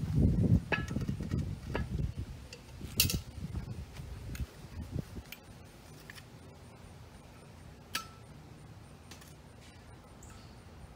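Cast-iron Dutch oven set down on pavers and charcoal handled with metal tongs at a charcoal chimney: dull thumps and handling for the first few seconds, then a few sharp metallic clinks spread through the rest.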